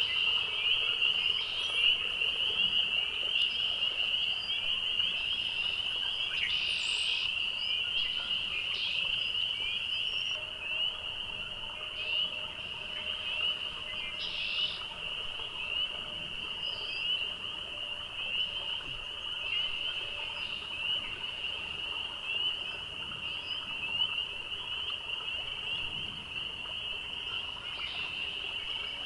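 Spring peeper breeding chorus: many males calling at once, their short, slightly rising peeps overlapping into a continuous high-pitched band of sound.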